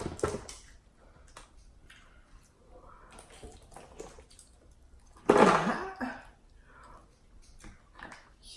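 Close-miked wet eating sounds from a saucy seafood boil: slurping and chewing with scattered small clicks. There is a burst at the start and a louder one, lasting about a second, about five seconds in.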